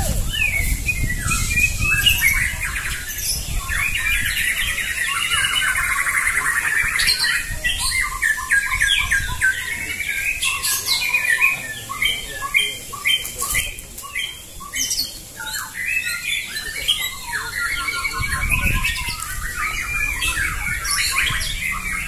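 Several white-rumped shamas (murai batu) singing at once: loud, overlapping, fast-changing phrases with rapid trills and sharp high notes. A low rumble sits under the song at the start and again near the end.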